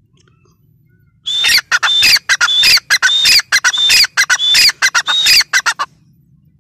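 Grey francolin calling: a loud, rapid run of repeated shrill call notes that starts about a second in and stops near the end.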